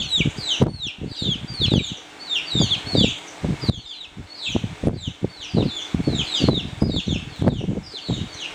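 Many birds chirping without pause in short, high calls that each slide downward. Under them runs a steady patter of dull low thumps and rustling.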